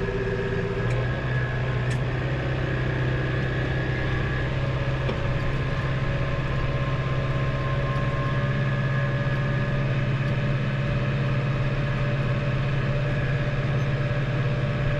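Tractor engine running steadily under load with the mounted mower cutting grass, heard inside the cab; the engine note grows a little stronger about a second in and then holds steady.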